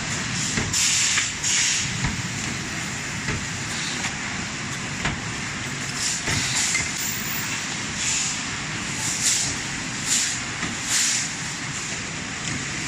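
CNC steel tube serpentine bending machine running, with a steady mechanical din and repeated short hisses of released air at irregular intervals.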